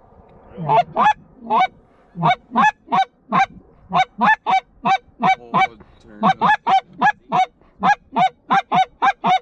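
Canada goose honks: about two dozen loud calls in quick, uneven succession, each breaking sharply upward in pitch.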